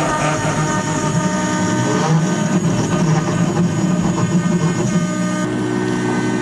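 CNC router cutting wood: the spindle runs with a steady whine over the noise of the bit in the wood.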